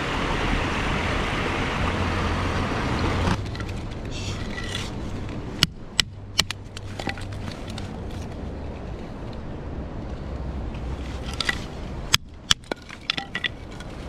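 A steady rush of stream water for the first three seconds, then stops abruptly. Then a knife is struck down through sticks of kindling to split them: sharp wooden cracks and knocks, three a little before halfway and a quick cluster near the end.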